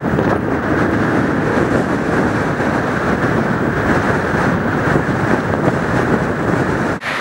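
Strong wind buffeting the microphone over choppy, wind-driven floodwater: a steady, loud rushing with a deep rumble, which drops out briefly near the end.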